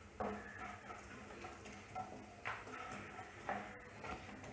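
Cumin seeds frying quietly in hot ghee in a pan, alongside black peppercorns and ginger, with a few sharp clicks as a wooden spatula stirs the tempering.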